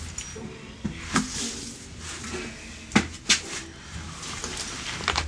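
A handful of sharp knocks and clatters, like hard objects being handled and set down, about five in all with the loudest about three seconds in.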